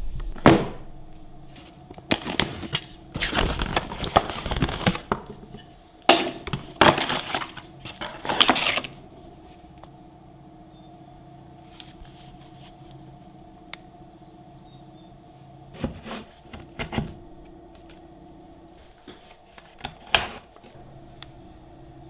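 Handling and unpacking noises: several bursts of crackling and rustling packaging in the first nine seconds, then a few short clicks and knocks as a cordless-tool battery pack is handled.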